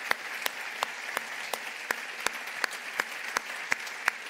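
Church congregation applauding, an even crowd clapping. One man's claps close to the microphone stand out sharply above it, about three a second.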